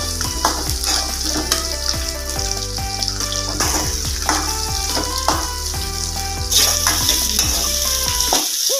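Chopped shallots sizzling in hot oil in a non-stick kadai while a spatula stirs and scrapes them, being sautéed until golden. The sizzle gets louder about six and a half seconds in.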